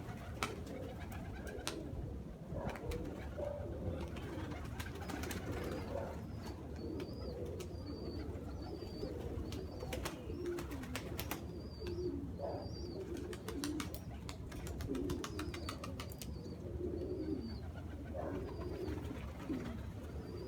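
Domestic pigeons cooing, a steady run of low warbling coos overlapping one another, with a few bursts of rapid ticking around the middle.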